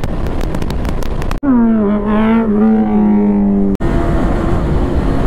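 Motorcycle engine sounds in quick cuts: rough engine noise, then, about a second and a half in, an engine revving up to a steady strong exhaust note for about two seconds, then an abrupt cut back to rough engine noise.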